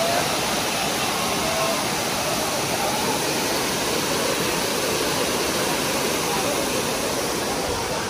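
Waterfall: the steady rush of water falling over rock, even and unbroken.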